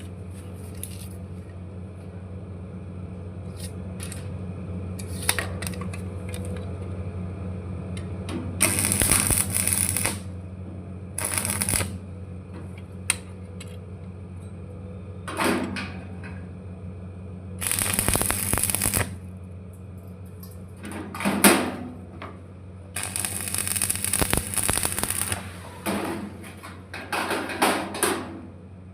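Stick (arc) welding: the arc crackles and sizzles in several separate runs of one to two and a half seconds, over a steady low electrical hum.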